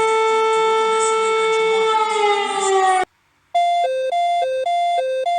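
Emergency alert alarm tones: a steady, buzzy siren-like tone that drops in pitch about two seconds in and cuts off abruptly. After a half-second gap, a two-tone high–low alert begins, alternating rapidly like a doorbell chime.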